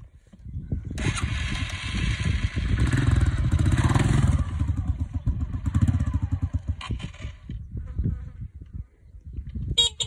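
Honda CRF125 dirt bike's single-cylinder four-stroke engine running. About a second in it rises to a loud, steady pull as the bike is walked up a rocky slope, then after about four and a half seconds it eases to an uneven low idle with knocks and thumps.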